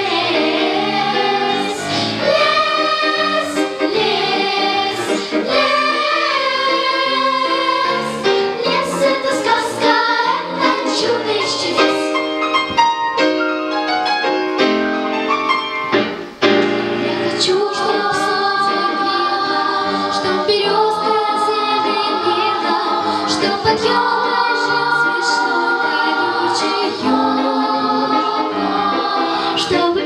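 Children's choir singing a song, the voices carrying on through the whole passage with only a short break between phrases about sixteen seconds in.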